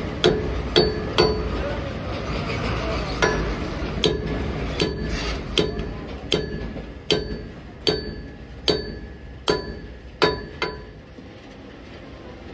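Hammer blows on the steel wheel hub of a lorry as new wheel stud bolts are driven in: sharp metal-on-metal strikes, each with a short ringing tone. Three come in quick succession at the start, then a steady blow about every 0.8 s, stopping about 11 seconds in.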